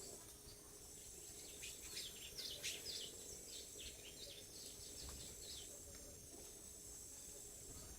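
A bird giving a quick run of short, high, falling chirps for a few seconds, over a steady high insect drone.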